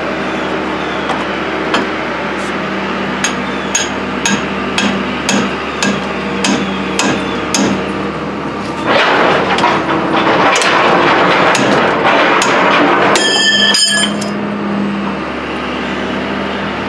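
Metal hammering on a Dodge Dakota's steel front spindle knuckle, in even strokes about two a second. Then a few seconds of dense, loud rattling clatter, ending in a short ringing metal clang.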